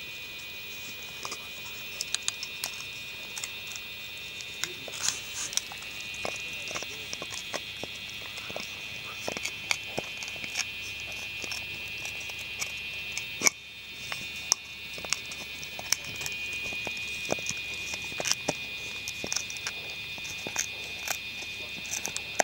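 Irish Wolfhound puppies gnawing a thin piece of wood: irregular sharp clicks and cracks of teeth biting and scraping on the wood. A steady high-pitched whine runs underneath.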